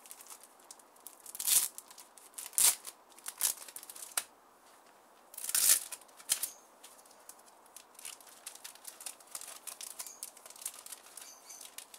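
Thin clear plastic packaging film torn open and crinkled by hand: several sharp rips in the first half, then lighter, quicker crinkling.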